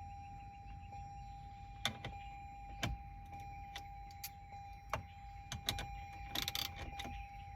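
Scattered light clicks and knocks of a 5/16 socket and ratchet being fitted and worked on a small bolt in plastic car trim, with a short rasp near the end. A faint steady tone runs underneath.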